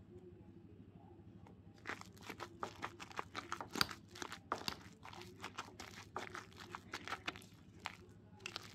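Wire potato masher being worked through buttery mashed potatoes in a ceramic bowl: irregular soft squishes and clicks, starting about two seconds in.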